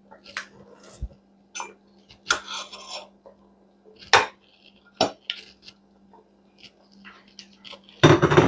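Kitchen utensils knocking and scraping against a pot and bowl: scattered short clinks and scrapes, with a louder, longer scrape near the end.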